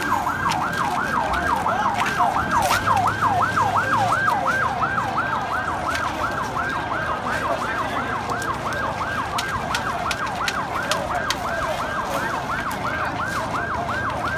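Emergency vehicle siren on a fast yelp, its pitch sweeping up and down about three to four times a second without a break.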